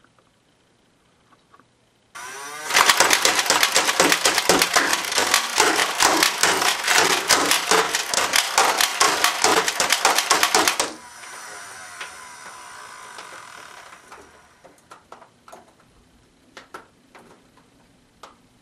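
Motorized foam-dart blaster on a homemade sentry turret whirring up about two seconds in, then firing a rapid clattering burst of about twenty darts for some eight seconds. After the burst its motor keeps running more softly for a few seconds and winds down, followed by a few light clicks.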